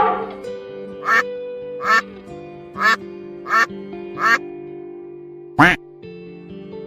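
Duck quacking: six short quacks spaced about a second apart, the last one the loudest. Background music with long held notes plays underneath.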